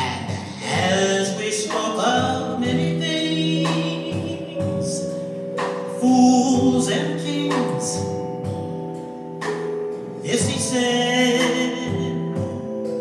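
Music with singing: a voice holding long, wavering notes over sustained chords.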